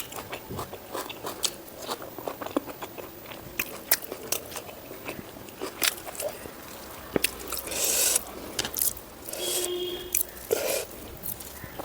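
Close-miked eating sounds: a person chewing and biting into pork fat and rice, with many wet mouth clicks and smacks. A brief hissing rush comes about eight seconds in.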